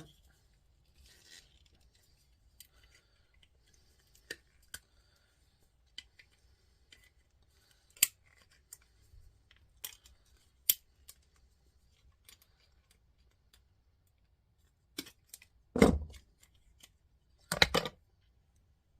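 Scattered sharp clicks and snaps of hand tools working at a small plastic part to break a brass stem free, with two louder knocks near the end.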